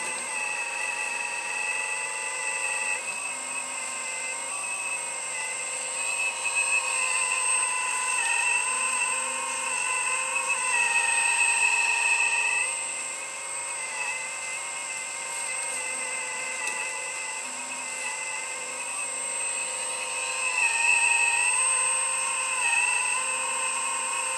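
Hydraulic pump and electric motor of an Earth Digger 4200 XL RC excavator whining steadily as the machine works, the pitch sagging and recovering several times as the arm and bucket take load.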